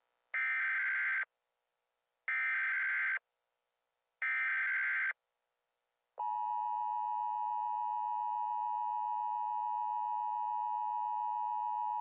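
Emergency Alert System SAME header: three short bursts of data tones, about two seconds apart. About six seconds in, the steady two-tone EAS attention signal starts and holds.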